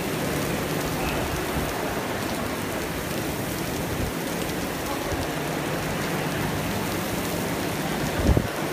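Steady heavy rain from the tornado-warned thunderstorm, an even hiss with a faint low hum beneath it. A single short low thump comes near the end.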